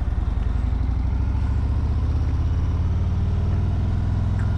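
Harley-Davidson Road Glide's V-twin engine running steadily while the motorcycle is ridden along the road.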